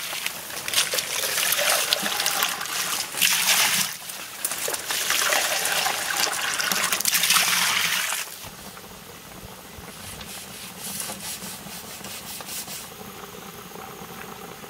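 Water poured into a large pot of biryani masala, splashing and trickling for about eight seconds. It cuts off suddenly, and a quieter bubbling follows as the pot boils.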